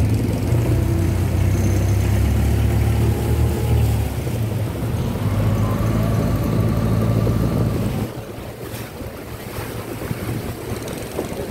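Boat engine running with a steady low hum, over wind on the microphone and the wash of water. About eight seconds in the engine hum drops away abruptly, leaving the water and wind noise.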